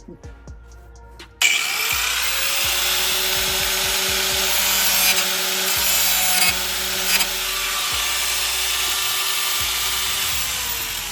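Angle grinder cutting into the car's sheet-metal floor pan. It starts suddenly about a second and a half in as a loud, steady hiss over a faint motor whine, and eases off near the end.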